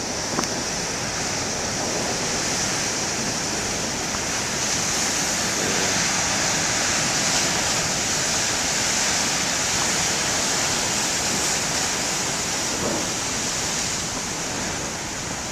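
Steady rush of surf from large waves breaking on the shore, swelling slightly in the middle with no single sharp crash.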